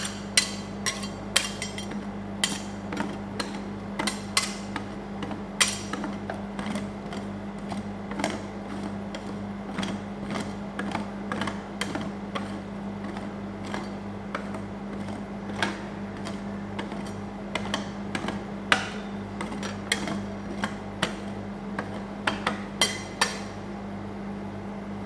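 Metal spatulas tapping and scraping on the frozen ice cream and the steel cold plate of a rolled-ice-cream machine: irregular sharp clicks and knocks, at times several a second, over a steady low hum. The tapping stops a couple of seconds before the end.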